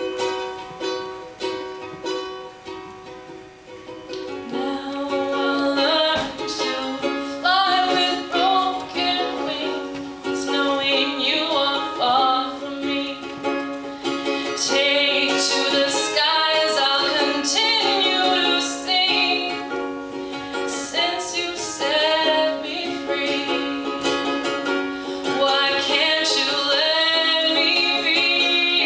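Ukulele strummed steadily in a song. A woman's singing voice comes in about five seconds in and carries on over it, with a wavering pitch on held notes.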